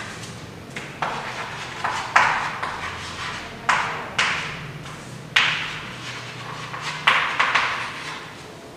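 Chalk writing on a blackboard: a string of sharp taps and scratches as each stroke lands, each fading quickly, over a faint steady low hum.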